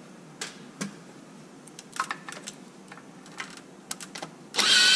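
Light clicks and taps of tools and small parts being handled. Near the end, a cordless power screwdriver whirs with a steady, slightly rising whine as it backs a screw out of the truck's chassis tray.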